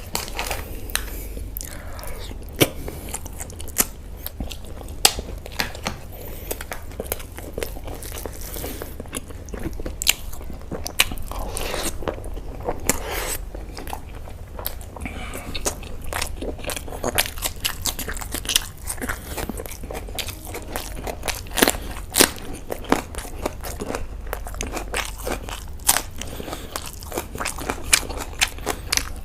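Close-miked eating: chewing and biting with frequent sharp crunches and wet mouth clicks, over a steady low hum.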